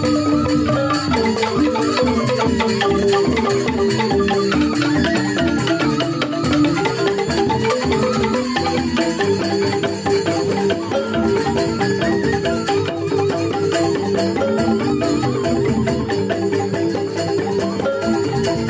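Balinese joged bumbung gamelan playing: bamboo xylophones (grantang) ringing out fast, densely repeating interlocking notes over kendang drum strokes.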